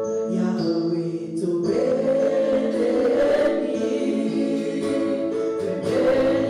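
Gospel worship music: sustained keyboard chords, joined about a second and a half in by a group of voices singing together.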